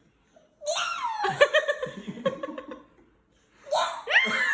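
Baby giggling and laughing in a string of high-pitched bursts. Near the end a cat gives a drawn-out meow that rises then falls.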